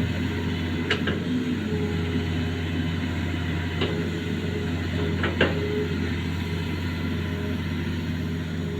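Hitachi Zaxis 210F excavator's diesel engine running steadily, with a faint whine that comes and goes. Sharp knocks come about a second in, near four seconds, and twice in quick succession about five seconds in.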